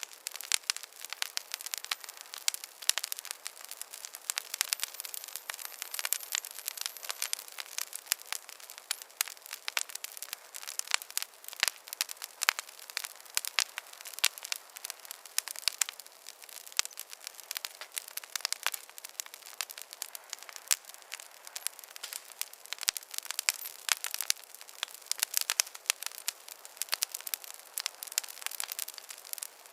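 Wood fire in a fireplace crackling, with a constant, irregular patter of small pops and snaps.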